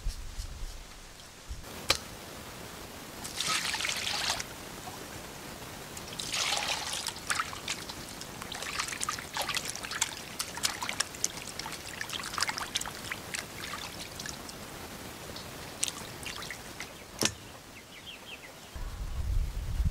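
Hands scrubbing raw pig tongues in a stainless steel bowl of water: irregular splashing, dripping and trickling, in spells through the first two-thirds, with a couple of sharp knocks, one early and one near the end.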